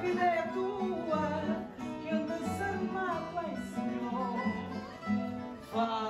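Live fado: a woman singing a wavering, ornamented melody to acoustic guitar accompaniment, the guitars plucking steady notes beneath her voice.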